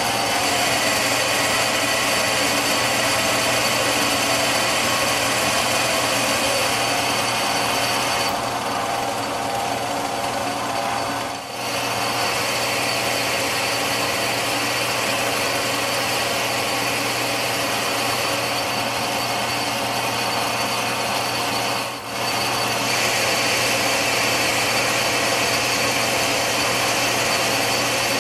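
Metal lathe taking a roughing cut on a steel stud: a steady cutting noise from the roughing tool peeling chips off the diameter, over the constant hum of the lathe's motor. The sound dips briefly twice.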